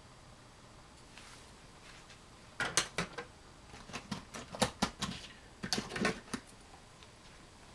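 Knives being handled on a hard surface: a run of sharp clicks and light knocks that starts a little under three seconds in and stops about a second and a half before the end.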